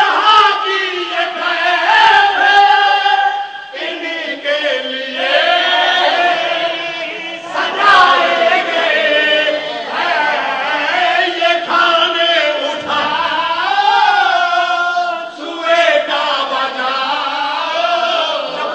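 Group of men chanting a devotional recitation together into a microphone, their voices loud and melodic, rising and falling throughout.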